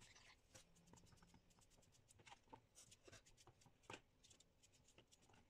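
Faint, irregular clicks and light scrapes of a kitchen knife cutting a raw potato held in the hand, with cut pieces falling into a plastic bowl.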